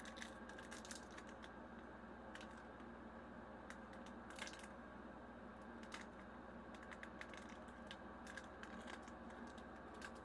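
Faint crinkling and small clicks of a foil booster pack and trading cards being handled, over a steady low hum.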